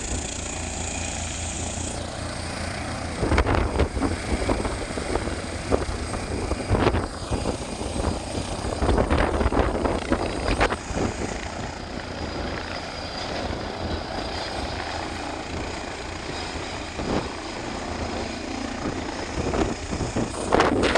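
Helicopter running: a steady, fast low rotor beat with engine noise over it, and louder irregular bursts at several points.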